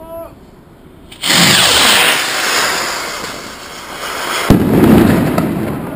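A firework goes up with a sudden loud hiss about a second in that lasts about three seconds, then bursts with a sharp bang followed by a fading rumble and crackle.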